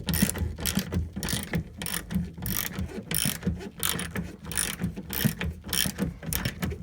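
Socket ratchet wrench with an 8mm socket clicking rapidly and unevenly as it loosens the bolt holding the door latch mechanism.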